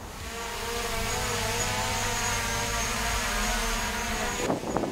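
DJI Mavic Pro quadcopter's propellers whirring as it spins up and hovers: a steady buzz of several slightly wavering pitches with a faint high whine, building over the first second. Voices come in near the end.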